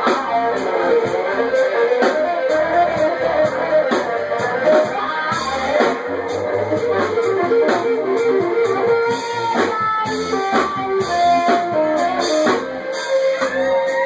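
Live band playing, with a guitar leading over drums, recorded through a Droid Razr Maxx phone's microphone.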